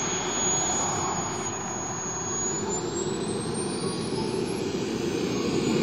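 Radio-controlled model jet's engine running: a rushing noise with a high whine over it, the whine rising in pitch from about halfway through.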